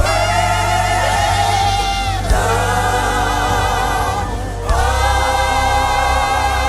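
Live gospel worship music: a choir and singers holding long wordless notes with vibrato over a sustained band chord and steady bass, the chord changing about two seconds in and again near five seconds.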